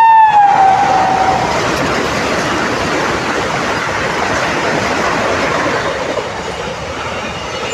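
A passing train: the locomotive's horn sounds a steady tone that slides down in pitch as it goes by and stops about a second and a half in, followed by the rushing clatter of the coaches that slowly fades.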